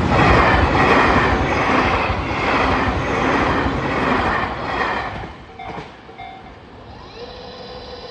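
Tobu 60000 series six-car electric train passing through the station at speed, its wheels clacking over rail joints in a regular rhythm, then fading out about five seconds in.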